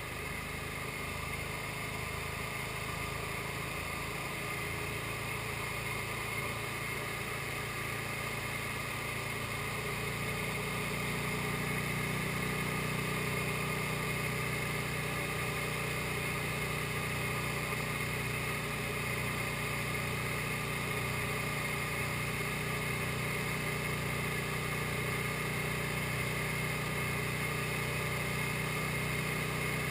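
SD-1 Minisport ultralight aircraft's engine and propeller droning steadily in flight, getting a little louder about ten seconds in.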